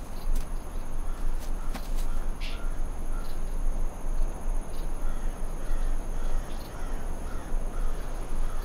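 Birds calling, a short call repeated every half second or so, over a steady low rumble of ambience, with a few sharp clicks.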